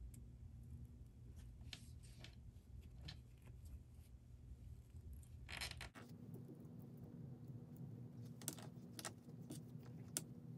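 Faint handling sounds of fabric trim and mesh being folded and pinned by hand: light rustles and scattered small clicks, over a low steady hum that changes abruptly about six seconds in.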